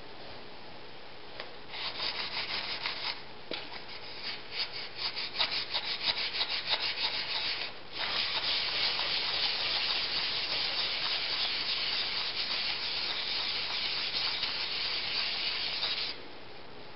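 Back of a steel chisel rubbed back and forth on wet/dry sandpaper to flatten and polish it near the edge. Short separate scraping strokes come first, then a steadier, louder rubbing from about halfway in that stops abruptly near the end.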